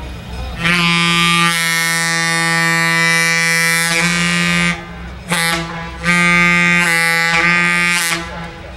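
Streamlined passenger diesel locomotive's multi-note air horn sounding for a grade crossing: a long blast, a short one, then another long blast, the end of the long-long-short-long crossing signal. A low engine rumble runs underneath.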